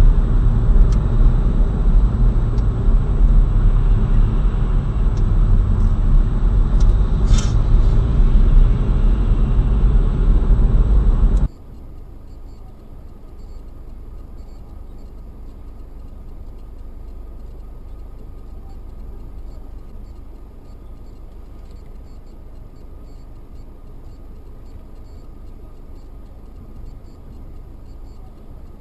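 Road and engine noise inside a moving car, picked up by a dashboard camera's microphone: a loud, steady low rumble for about the first eleven seconds, with one short sharp sound around seven seconds in. After a cut it drops to a much quieter steady hum with a faint high tone.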